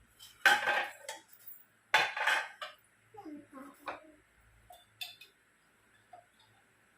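A metal spoon scraping and clinking against a cup in two main bursts about a second and a half apart, then a single sharp click a few seconds later.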